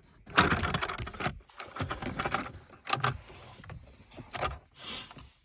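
Rattling, scraping and clicking of plastic and metal parts as a 2014 Dodge Durango's ignition switch is pushed out from behind the dash, with keys jangling. A run of rattling comes first, then a few separate clicks and knocks.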